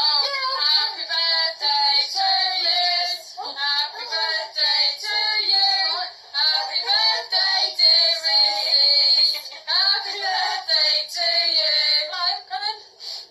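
A group of women and children singing together, their voices high and wavering.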